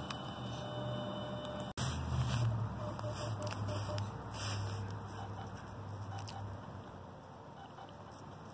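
Fitel S178A fusion splicer running its automatic alignment and splice cycle: a low steady hum that fades out a little past halfway, with faint rustling and ticks.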